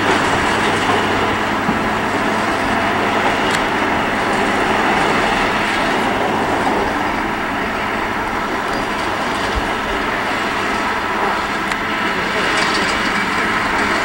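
Mount Washington Cog Railway train running on its rack track, a steady, unbroken mechanical noise.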